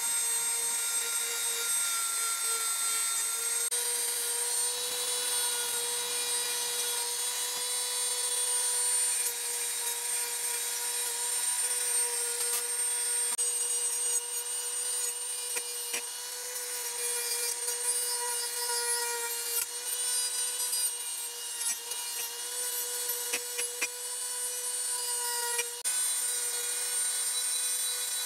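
Handheld rotary tool spinning a small abrasive disc against a bare die-cast metal model-car body: a steady high motor whine with the scratchy rasp of the disc on the metal, dipping briefly a few times.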